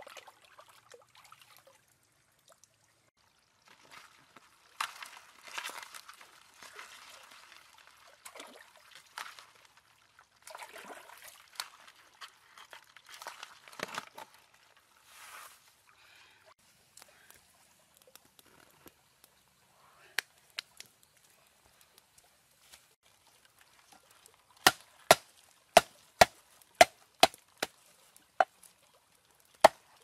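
Water pouring and sloshing in irregular bursts, then about eight sharp, evenly spaced chopping knocks near the end.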